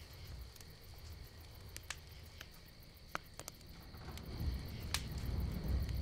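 Night ambience of crickets chirping steadily, with scattered faint clicks and a low rumble that swells near the end.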